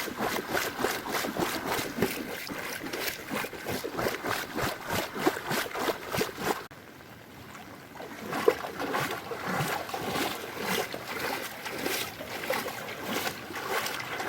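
Footsteps wading through floodwater, splashing in a quick, even rhythm of about four splashes a second. The sound drops away abruptly about seven seconds in and picks up again a second later.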